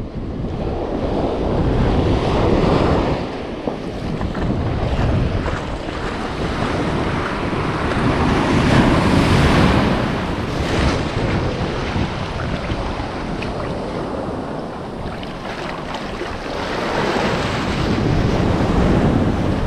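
Shallow surf washing in and out over the sand, rising and easing in three swells with the loudest near the middle, with wind buffeting the microphone.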